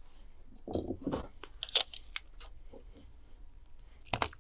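Light metallic clicks and clinks as a tape measure and a 3.5 mm craft wire are handled while the wire is measured, with a cluster of clicks about a second in and a louder pair near the end.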